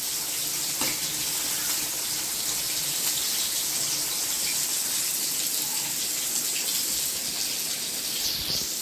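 Hot oil sizzling steadily as Bombay duck (bombil) fish deep-fry in a kadai: an even, unbroken hiss.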